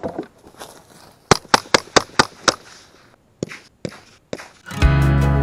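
A rapid string of .22 rifle shots: about six sharp cracks in just over a second, then two more, fired at an armadillo running from the trap. Background music starts near the end.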